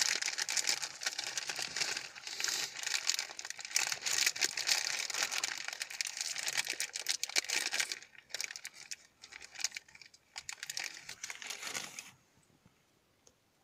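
A small clear plastic bag crinkling as a hand rummages in it for a cable tie. The crinkling is dense for about eight seconds, grows sparser, and stops about twelve seconds in.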